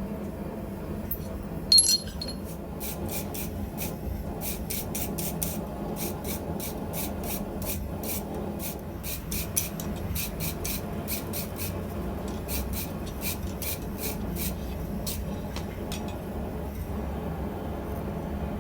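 Brass wire brush scrubbing the cold steel of freshly forged tongs in quick repeated strokes, about three a second, with a sharp knock about two seconds in.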